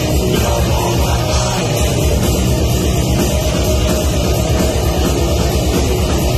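Deathcore band playing live at full volume: distorted electric guitars, bass and drums, with a fast, even kick-drum pattern under the guitars.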